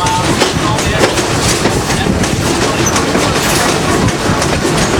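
Passenger train in motion heard from the coach: a steady rumble of wheels on the rails with clicking over the rail joints.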